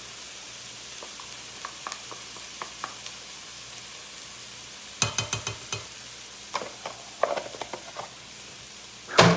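Ground beef with onions, garlic and tomato paste sizzling in a frying pan as a utensil stirs it, with bursts of scraping clicks about five seconds in and again around seven seconds, and a sharp knock near the end.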